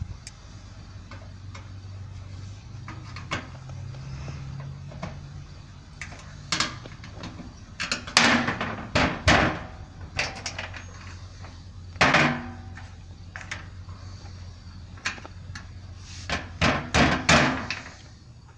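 Sharp knocks and clatters of hand tools and parts being handled during fuel-tank work, coming in clusters around the middle and near the end, over a steady low hum.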